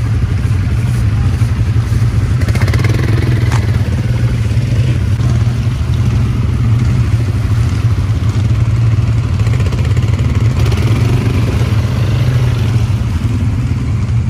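ATV quad bike engine running steadily under way, a constant low drone with rough noise above it.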